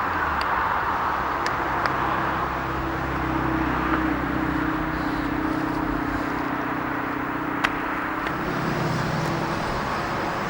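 Diesel railway engine running steadily, with a low hum that shifts in pitch at about eight seconds and a few sharp clicks.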